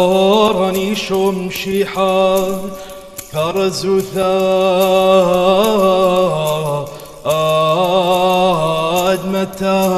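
A solo male voice chants a Chaldean liturgical chant, unaccompanied. He holds long notes with ornamented, wavering turns and pauses briefly for breath about three seconds in and again about seven seconds in.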